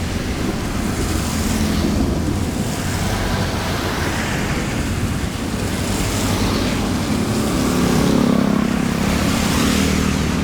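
Floodwater rushing steadily down a drain, a continuous loud rush with a low rumble underneath.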